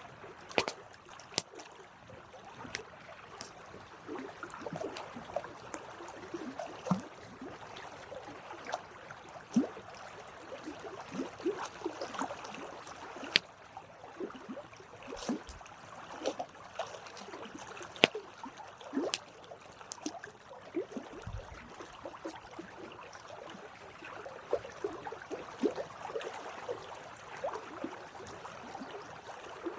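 Campfire burning: wood crackling steadily, with irregular sharp pops and snaps, a few much louder than the rest.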